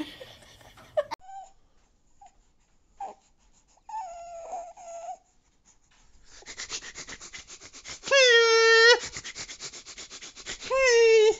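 A man's strained, rasping vocal noise, rough and pulsing, that twice rises into a loud drawn-out high cry: once in the middle and again at the end.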